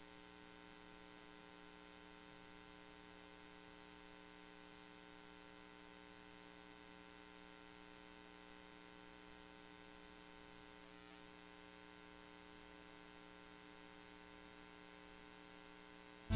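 Near silence with a faint, steady electrical hum: a set of constant low tones from the audio line, with nothing else happening.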